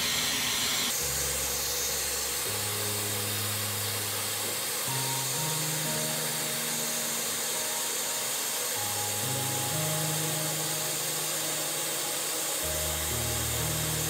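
Handheld hair dryer blowing with a steady whirring hiss, heating a phone's back glass to soften its adhesive, over background music of slow, changing low notes.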